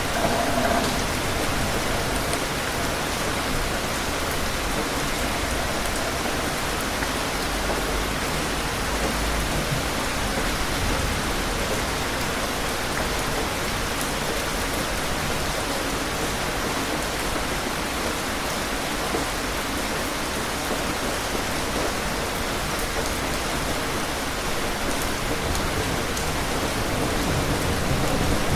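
Steady, heavy rain falling and pattering on surfaces, an even hiss of drops with no letup. A low rumble of thunder begins to build near the end.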